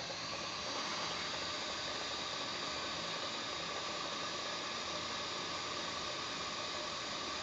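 Hot-air rework station blowing a steady hiss of hot air during SMD soldering.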